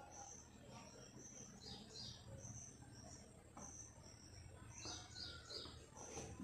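Near silence with faint high-pitched chirping: short notes repeating every half second or so, some in quick falling pairs.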